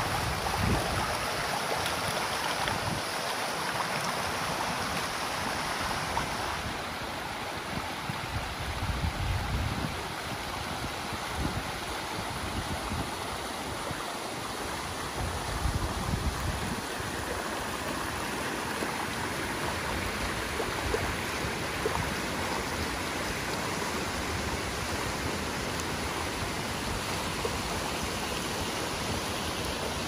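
Mountain stream running over rocks and small cascades: a steady rushing, splashing hiss of water. The sound turns a little duller about seven seconds in.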